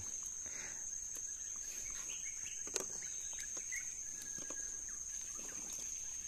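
Steady high-pitched insect drone, with a few light clicks from the bamboo slats of the fish trap being handled.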